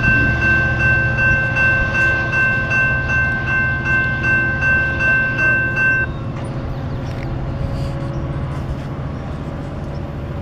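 Railroad crossing warning bell ringing, about two to three strokes a second, over the low steady rumble of a departing commuter train. The bell cuts off suddenly about six seconds in as the crossing clears, leaving the rumble.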